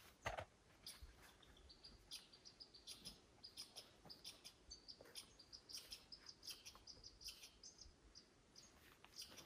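Small birds chirping faintly: many short, high calls in quick, irregular succession. There is a soft knock near the start.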